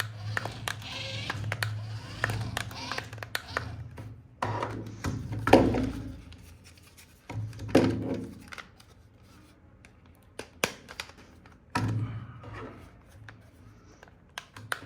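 Handling noises: scattered clicks and scraping, with two louder thuds about five and a half and eight seconds in.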